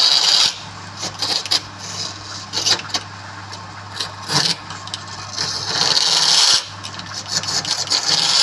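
A tool scraping and rasping across wood in irregular strokes, the longest about two-thirds of the way through, over a steady low hum.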